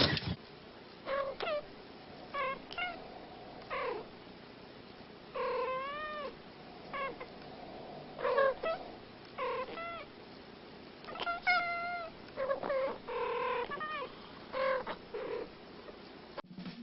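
A cat meowing over and over: about a dozen and a half short meows with brief pauses between them, a few drawn out, rising and then falling in pitch.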